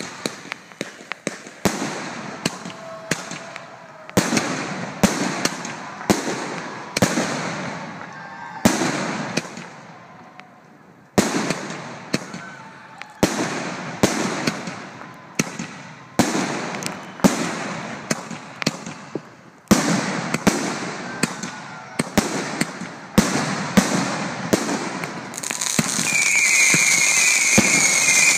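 Fireworks going off at close range: a rapid series of sharp bangs, about one or two a second, each trailing off, with a short lull about ten seconds in. Near the end a steady hiss with a high warbling whistle takes over.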